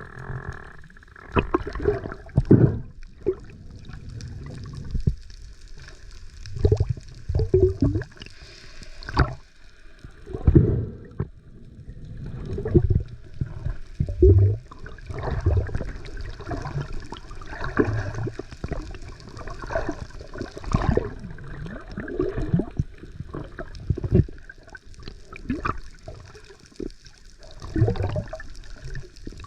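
Seawater sloshing and gurgling in irregular surges, with splashes and bubbling.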